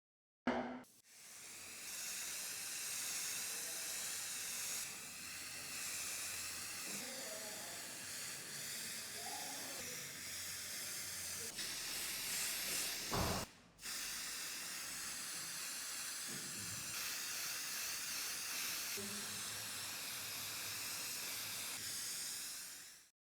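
Steady high hiss of a pressurised spray or compressed-air jet, cut off abruptly twice between shots.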